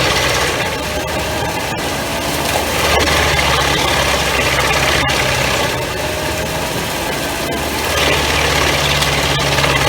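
New Holland tractor engine driving a Pezzolato PTH 1000/1000 G drum wood chipper through the PTO, running loud and continuous with the dense noise of the drum chipping wood. The low engine note fades twice and comes back, and a few sharp cracks stand out.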